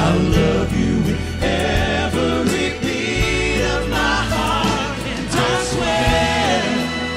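Male gospel vocal quartet singing in close harmony, several voices together, over a band of piano, bass guitar and drums with cymbal hits.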